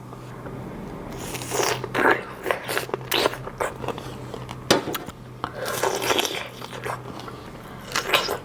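Biting into and chewing a large strawberry close to the microphone: several sharp bites among stretches of wet chewing.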